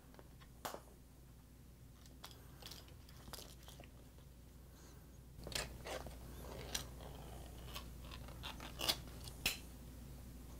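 Ring-pull lid of a sardine tin being pried up and peeled off: a click as the tab lifts, then, about halfway through, a run of crackling metal and sharp snaps as the lid tears away, the loudest snaps near the end.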